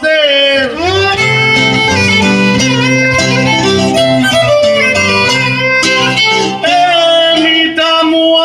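Violin playing a Cypriot tsiattista folk tune with gliding ornaments, over a plucked string accompaniment. The lower accompanying notes drop out about two-thirds of the way through.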